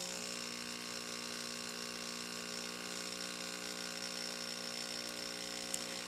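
Jura D6 espresso machine's pump humming steadily as it runs water through the system at the start of its automatic cleaning cycle.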